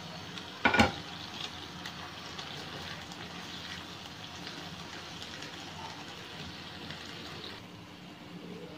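Diced chicken sizzling in oil in a non-stick frying pan with spices and tomato purée just added, an even hiss that softens near the end. A sharp knock about a second in.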